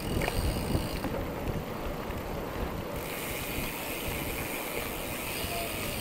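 Wind buffeting the microphone on a moving bicycle ride, a rough uneven low rumble, with a steady high hiss coming in about halfway through.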